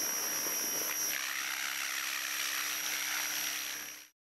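Small remote-control helicopter's electric motor and rotor running steadily: a high whine over a rushing hiss, fading out near the end.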